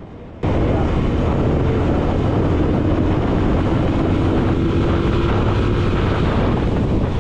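TVS Apache RTR 160's single-cylinder four-stroke engine running hard as the motorcycle accelerates to about 80 km/h, with heavy wind rush on the microphone. The sound comes in abruptly about half a second in.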